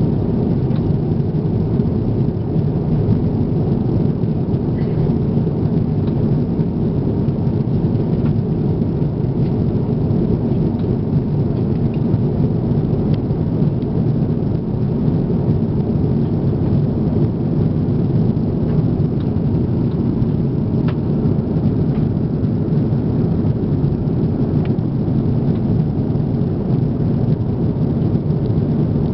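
Steady low roar inside the cabin of an Airbus A340-300 in flight: engine and airflow noise heard from a window seat over the wing, with only a few faint ticks on top.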